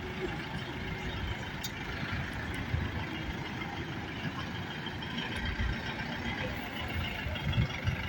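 GAZelle van running on the road, a steady low engine and road rumble.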